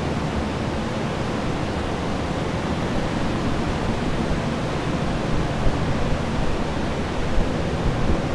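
Steady rushing drone of many water-damage air movers and dehumidifiers running together to dry a flooded floor, with occasional low bumps in the second half.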